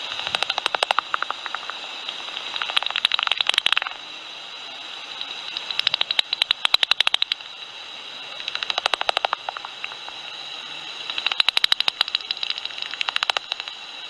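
Pipistrelle bat calls heard through a bat detector: rapid trains of clicks in repeated bursts of about a second, over a steady detector hiss.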